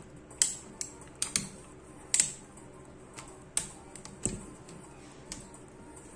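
Irregular sharp clicks and snaps, about eight in six seconds, from a small tool prying and scraping at the frame edge of a disassembled LCD monitor panel.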